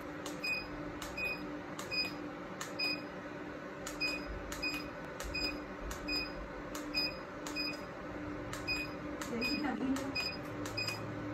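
Diode laser hair-removal machine firing its handpiece in a steady run of pulses, each marked by a short high beep and a click, about every three-quarters of a second, over the steady hum of the machine.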